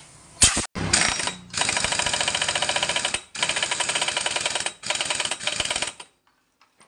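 Impact wrench hammering in bursts: a short one near the start, then three of about a second and a half each, and it stops about a second before the end. It is fastening the reassembled CVT roller housing (variator) back onto a Honda PCX 160.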